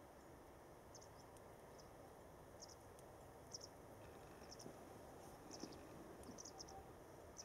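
Near silence: faint outdoor background noise with scattered short, high-pitched chirps, often in quick pairs, coming more often in the second half.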